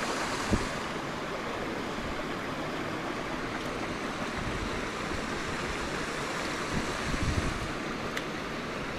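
Small mountain brook running over rocks: a steady rush of water. A low thump about half a second in, and a few softer thumps near the end.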